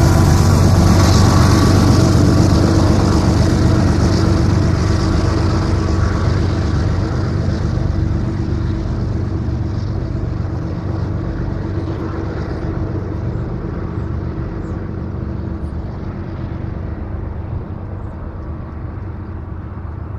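GE ES44AC diesel-electric locomotives shoving at the rear of a loaded coal train: the engines run steadily under load and slowly fade as they move away.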